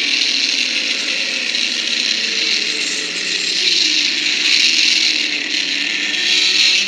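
A Godzilla sound effect: one long, harsh, hissing screech that starts suddenly, holds fairly steady for about seven seconds, then fades away.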